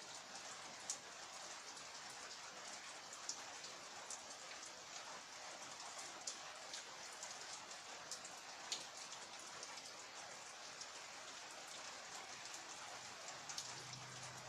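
Steady rain falling, with many separate drops ticking sharply at irregular moments.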